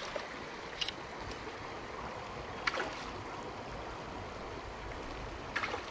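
Steady rush of a shallow river flowing, with a few faint short clicks about a second in, near the middle and near the end.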